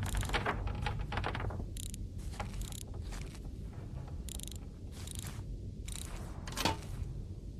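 Safe's lock mechanism being worked, likely the combination dial turning, giving a run of irregular mechanical clicks with one louder clack near the end.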